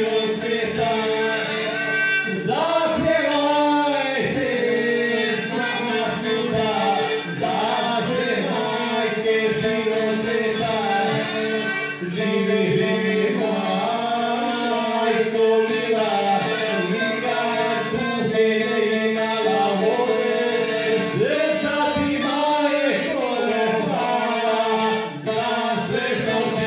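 Live folk song: male vocals over a strummed long-necked lute, with a violin playing along.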